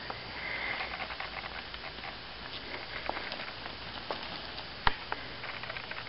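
A cat playing with a feather wand toy: scattered light rustling and tapping, with one sharp click about five seconds in.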